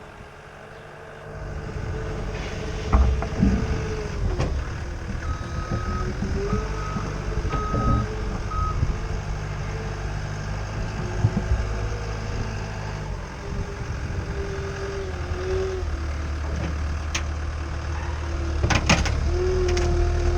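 CAT 246B skid steer running, its engine and hydraulics droning with a pitch that wavers as it works. Its backup alarm beeps about five times partway through, and a few sharp knocks and clanks sound, the loudest near the end.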